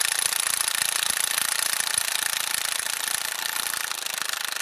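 Onevan 3100 Nm brushless cordless impact wrench, on its 4 Ah battery, hammering continuously in rapid blows on a seized, rusted wheel-hub nut that is very hard to break loose.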